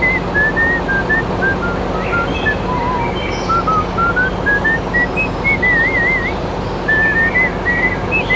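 A whistled tune of short notes stepping up and down, with a quick warbling trill about six seconds in, over a steady noisy background with a low hum.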